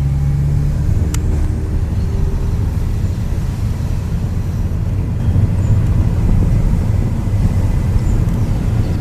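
Honda Civic Si's K20 four-cylinder engine with aftermarket exhaust and header, driving with a steady, low-pitched exhaust note.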